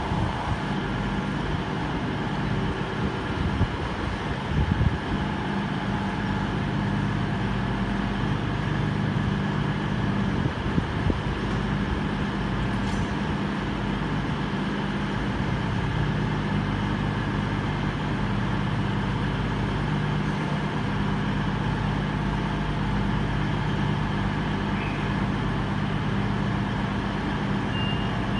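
CrossCountry Class 221 Super Voyager diesel multiple unit standing at the platform, its underfloor Cummins diesel engines idling in a steady low hum.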